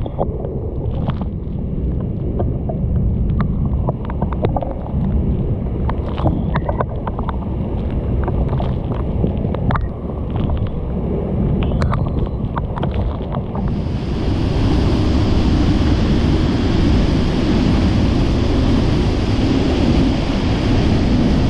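Sgwd yr Eira waterfall in heavy flood: a loud, steady roar of falling water. For the first two-thirds it sounds muffled, with many sharp taps of drops striking close by. About two-thirds through it opens out into a fuller, louder roar.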